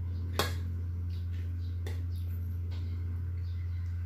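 Spoon and fork clicking against a plate while eating: one sharp click about half a second in and a few fainter ones later, over a steady low hum.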